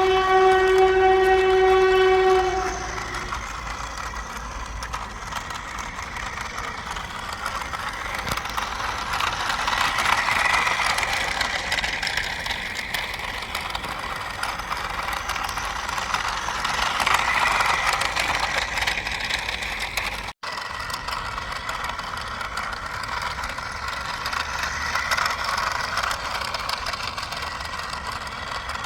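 Battery-operated toy train sounding its electronic horn, one steady note held for about three seconds, then running on with a continuous whirring, rattling noise that swells and fades. The sound cuts out for an instant about two-thirds of the way through.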